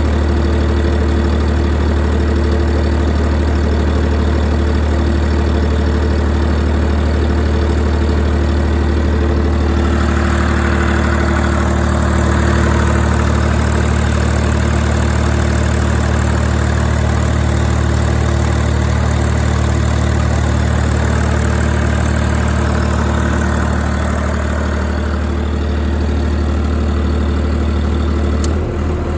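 YD385 three-cylinder diesel engine driving a generator, running steadily throughout. About a third of the way in its sound changes and a hiss comes up over the running note, fading again later on. A sharp click comes near the end, and the level dips slightly.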